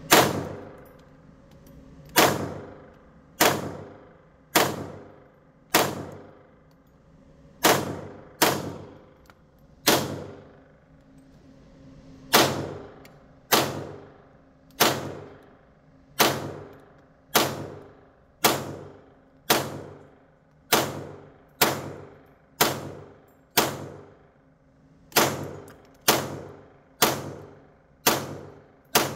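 HK416 .22 LR rifle firing about two dozen single unsuppressed shots of Winchester high-velocity ammunition, one every second or so. Each shot leaves a short ringing echo off the indoor range.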